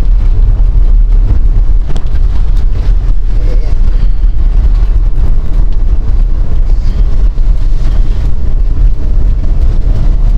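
Strong gusty wind buffeting the moving car and its microphone: a loud, steady low rumble over the car's running noise.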